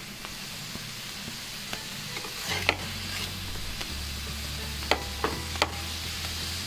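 Lachha paratha sizzling in oil on a hot iron tawa, with a steel spatula scraping under it and clicking sharply against the pan a few times as it is worked loose.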